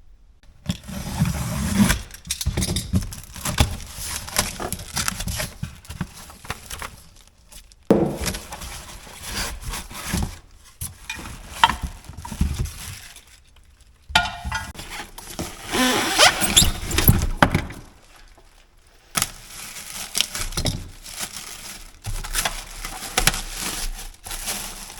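A Wen belt and disc sander being unboxed: cardboard and packing material handled and pulled apart, with irregular rustling, scraping and scattered sharp knocks, in several stretches that stop and start abruptly.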